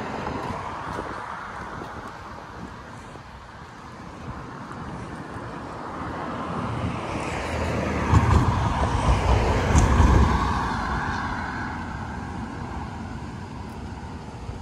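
A car passing on the road right beside the sidewalk: tyre and engine noise swells, goes by about eight to ten seconds in, then fades. Wind buffets the microphone throughout.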